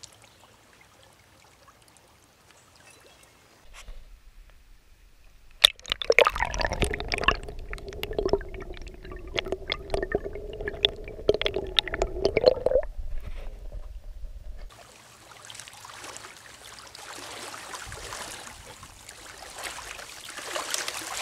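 Muffled underwater gurgling and clicking from a camera held under a trout stream's surface while a brown trout is released, with a steady hum through the middle. From about fifteen seconds in, the rush of a riffle above water takes over.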